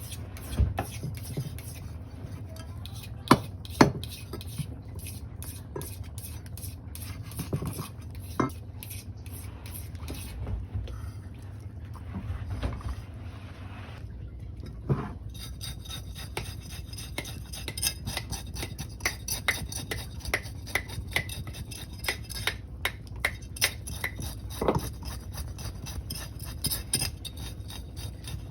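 Kitchen utensils clinking and scraping against pans and dishes while fish is prepared for cooking, with scattered knocks at first and then a long run of quick, even taps over a low steady hum.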